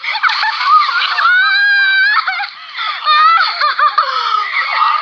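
Girls screaming and laughing in excitement, with one long high-pitched scream that rises slightly about a second in.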